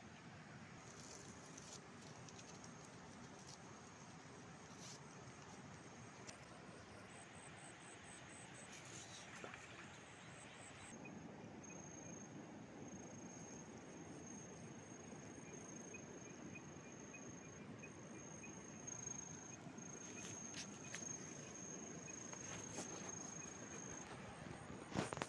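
Faint outdoor ambience: a steady hiss, with a thin, high, steady insect buzz through the second half that breaks off briefly a few times. There are scattered small clicks, and a sharper click comes near the end.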